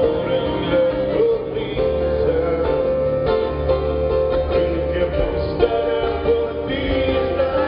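Live band music with strummed guitar at a soundcheck, a steady bass line coming in about two seconds in.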